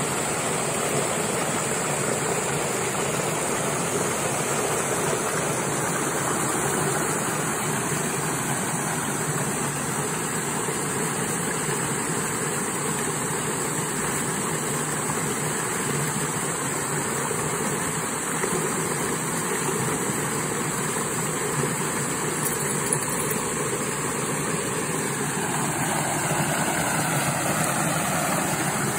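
Water rushing steadily down a narrow concrete drainage channel, churning white as it pours through.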